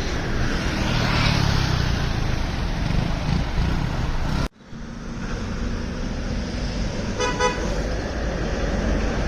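Steady road traffic and wind noise heard from a bicycle ride through city streets, with a short horn toot about seven seconds in. The sound drops out for a moment about halfway through at an edit.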